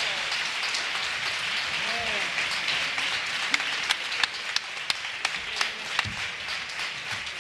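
Theatre audience applauding after a choral song, with a few shouts and voices in the crowd.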